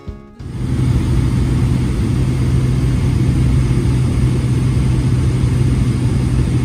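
Steady engine and propeller drone heard inside the cabin of a high-wing light aircraft in flight, a constant low hum under a rushing noise. It starts abruptly about half a second in.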